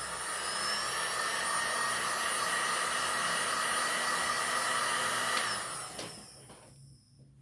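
Hot-air heat gun blowing steadily, softening the adhesive under a phone battery. It is switched off about five and a half seconds in and winds down.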